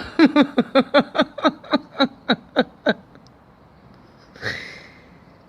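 A man laughing: a quick run of about a dozen 'ha' notes, each falling in pitch, over about three seconds, followed a little later by a short breath.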